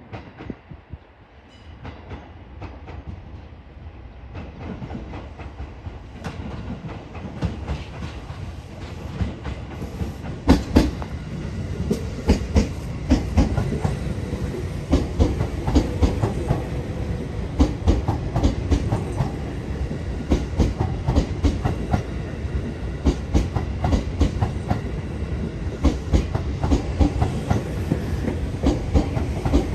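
A JR 255 series electric multiple unit approaching and running in alongside the platform. Its sound builds over the first ten seconds, then goes on as a steady rumble with a quick run of wheel clacks over rail joints.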